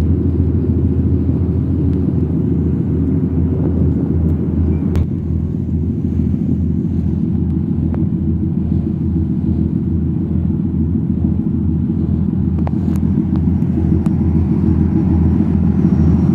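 A tugboat's diesel engines running steadily under load while towing a barge: a low, steady hum with a regular throb.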